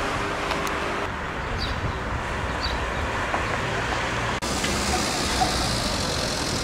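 Steady outdoor street noise with traffic, shifting abruptly twice.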